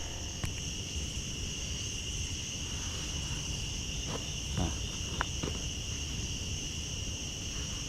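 Crickets or similar night insects chirring steadily in two high continuous bands, with a low background rumble and a few faint clicks.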